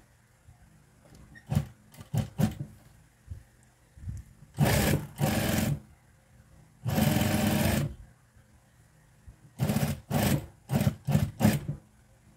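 Juki industrial sewing machine stitching in stops and starts. It gives a few quick spurts, then three runs of about a second each in the middle, then a string of short spurts near the end.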